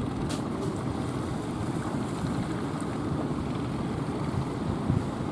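Steady low rumble of wind and rough surf mixed with the motors of outrigger fishing boats running through the waves, with wind buffeting the microphone. A short click just after the start.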